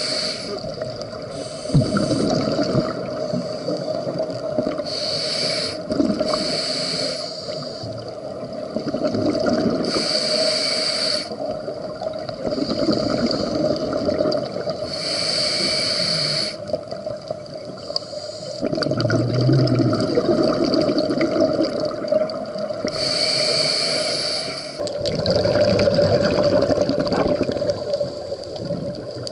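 Scuba diver breathing through a regulator, heard through an underwater camera housing. Each breath has a short hiss on the inhale, followed by a longer stretch of rumbling, gurgling exhaust bubbles, repeating every few seconds across several breaths.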